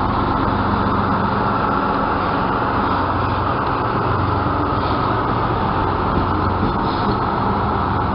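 DR1A diesel multiple unit departing, its diesel engine running with a steady low drone over the rumble of the cars rolling on the track.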